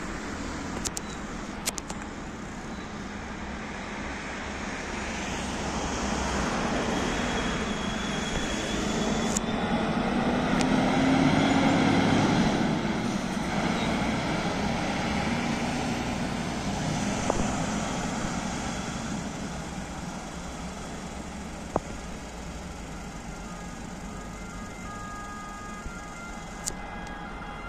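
Diesel engine of a MAN fire engine pulling away and driving past, swelling to its loudest about halfway through and then fading as it goes. It runs without a siren. Near the end a distant siren starts up faintly.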